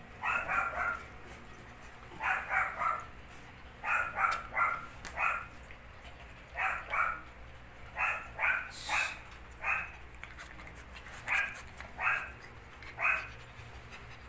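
Belgian shepherd puppy barking: short, high yaps in quick runs of two to four, repeated every second or two.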